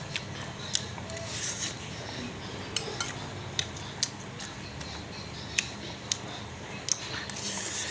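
A metal spoon or fork clinks and scrapes against a bowl while someone eats noodles, in sharp irregular clicks every half second or so.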